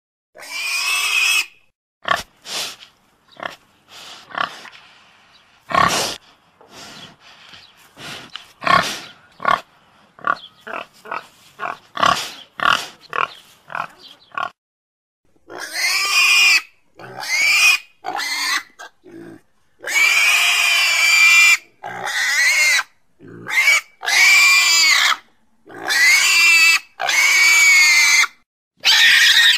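Domestic pig making short, quick grunts for about fifteen seconds, then a run of long, high, wavering squeals of about a second each.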